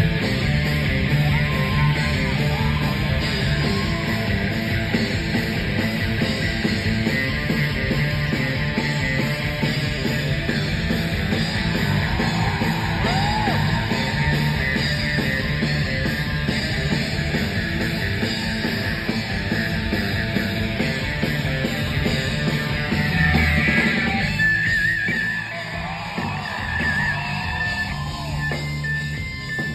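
Live rock band playing: drums, bass, electric guitars and keyboards, heard from the audience. Near the end the heavy low end drops away and the music gets quieter.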